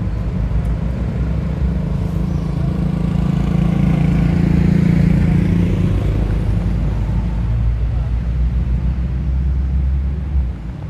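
A motor vehicle's engine running close by, a steady low hum that grows louder towards the middle and drops away suddenly near the end.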